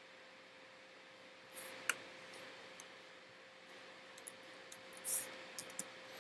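A few faint computer mouse clicks over quiet room tone with a steady low hum.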